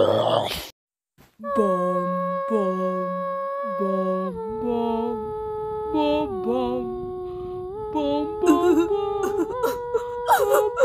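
A person humming a slow tune in long held notes that step from one pitch to the next. It follows a short loud vocal sound and a brief silence at the start. Near the end the humming turns shakier, with short broken vocal sounds.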